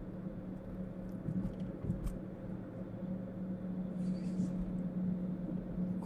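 Steady low hum and rumble of a car driving, heard from inside the cabin, with a few faint clicks.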